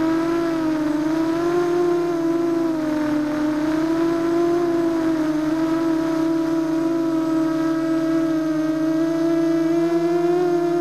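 ZMR250 quadcopter's brushless motors and propellers whining in flight, heard from on board. The pitch wavers gently up and down as the throttle changes.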